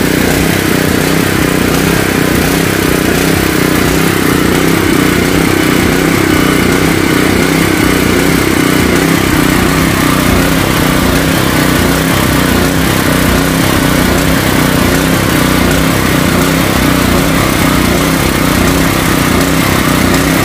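Extreme ET4000 generator's open-frame gasoline engine running steadily and loudly close by.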